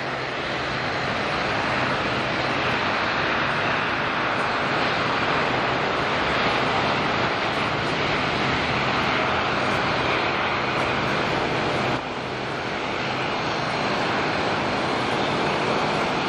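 Boeing 787-9 jet airliner's Rolls-Royce Trent 1000 turbofan engines at takeoff thrust through the takeoff roll, liftoff and initial climb: a loud, steady rushing jet noise with a low hum underneath. There is an abrupt drop in level about twelve seconds in.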